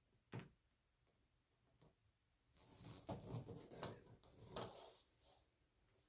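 A single faint click, then a couple of seconds of irregular knocking and rustling as the CPAP hose and ozone joint adapter are pulled off and handled.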